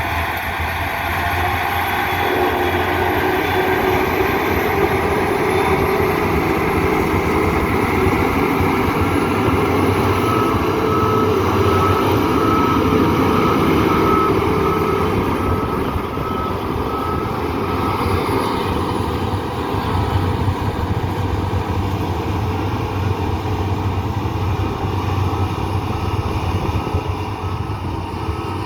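A heavy machine's engine running steadily. A reversing alarm beeps at a steady pitch for several seconds around the middle.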